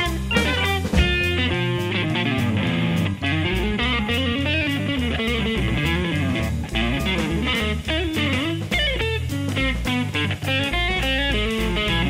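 Outro music: electric guitar over a drum kit with a steady beat.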